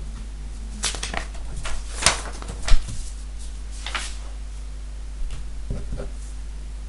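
Paper sheets rustling and being handled as an exam paper's pages are turned over on a desk, with several crisp swishes and one sharp bump near the middle. A steady low hum runs underneath.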